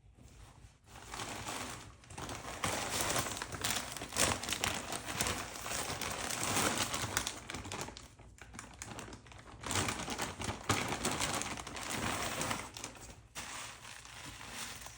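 Plastic packaging crinkling and rustling in irregular bursts as a mailed wig is unwrapped and handled, easing off briefly about two-thirds of the way through.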